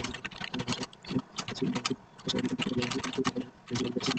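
Fast, continuous typing on a computer keyboard: a rapid, irregular run of key clicks with a few brief pauses, as in a timed typing-speed test.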